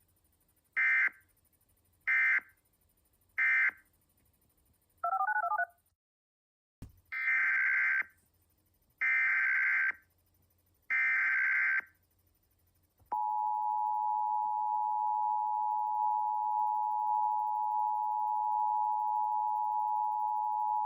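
Emergency Alert System SAME data bursts. First come three short, buzzy end-of-message bursts and a brief warbling two-pitch tone. After a cut come three longer header bursts announcing the next alert, followed by the EAS two-tone attention signal held steady for about eight seconds.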